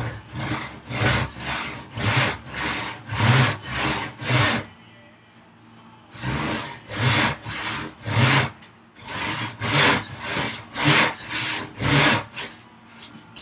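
Disston hand panel saw cutting through a thick wooden board, in steady back-and-forth strokes about two a second, with a short pause about five seconds in. The saw is dull: its owner says it really needs sharpening.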